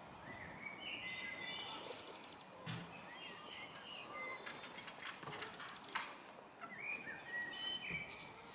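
Small birds singing and chirping, several short warbling phrases overlapping, over a faint outdoor background hiss; a sharp click about six seconds in.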